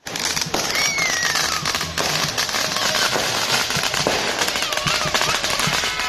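Fireworks and firecrackers going off in a dense, continuous crackle of rapid pops.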